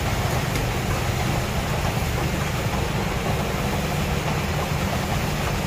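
A steady low mechanical hum, like an idling engine or running motor, even in level throughout.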